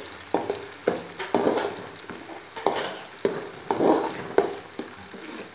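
Small onions, garlic and dried red chillies frying in oil in a metal kadai, sizzling steadily, while a metal ladle stirs and scrapes the pan in repeated strokes about twice a second. The onions are being sautéed until glassy.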